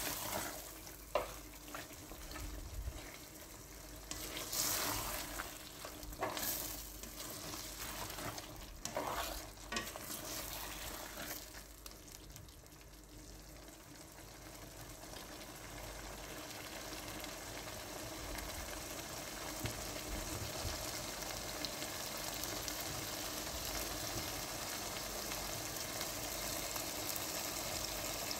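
Chicken pieces frying over low heat in tomato masala in a steel pot. For the first ten seconds or so a spoon scrapes and knocks against the pot as it is stirred. After that comes a steady sizzle that slowly grows louder.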